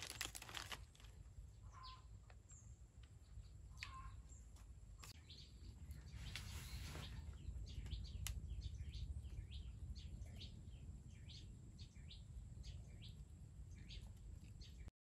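Faint small birds chirping in short, repeated calls that grow denser in the second half, over a low steady rumble of outdoor ambience. A plastic snack packet crinkles in the first second.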